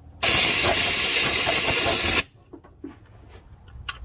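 A loud blast of compressed air, about two seconds long, blowing out the wiring connector of a transmission range sensor; a few light clicks and taps of handling follow.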